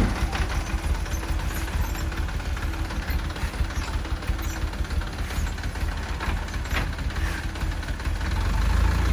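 Truck engine idling with a steady low rumble, growing somewhat louder near the end.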